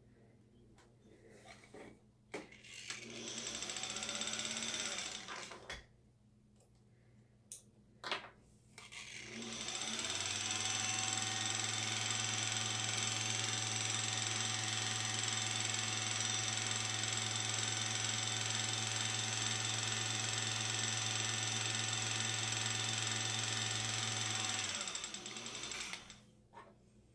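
Vintage Singer sewing machine's motor winding a bobbin: a short run of a few seconds, two clicks, then a long steady run of about fifteen seconds that spins up at the start and winds down at the end.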